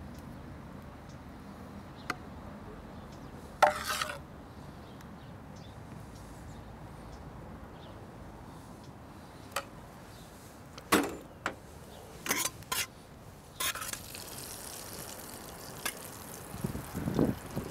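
A metal spoon clinking and scraping against a stainless steel pan and a ceramic bowl while a dish is plated. About a dozen scattered clinks, the loudest about four seconds in, and a busier clatter of pan and spoon near the end.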